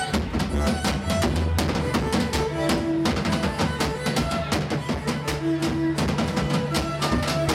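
Live folk-rock band playing, with heavy drumming in front: a drum kit and a second standing drum beaten with a stick, under held notes from the other instruments.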